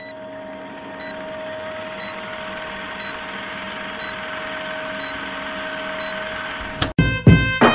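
Film-projector countdown sound effect: a steady whirring, clattering projector run with a short high blip about once a second. It cuts off suddenly about seven seconds in and loud music with hard percussive hits starts.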